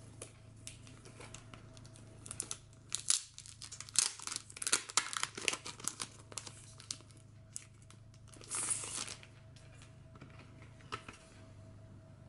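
Clear plastic sleeve crinkling and rustling as a card calendar is slid out of it and handled. The crackles come in irregular clusters, with a longer rustle about eight and a half seconds in and a single click near the end.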